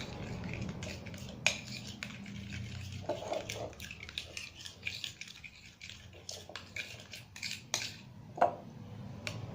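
A utensil stirring a sticky glue-and-lotion slime mixture in a container, with irregular clicks and taps against the container, as boric acid water is mixed in to activate the slime. Two taps stand out, about a second and a half in and near the end.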